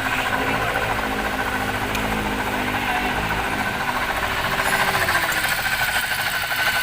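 Toyota Rush engine running, with a steady noise from the alternator: its two inner bearings are worn.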